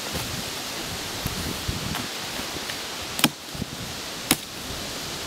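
Axe chopping wood: a few light knocks, then two sharp strikes about a second apart in the second half, over a steady background hiss.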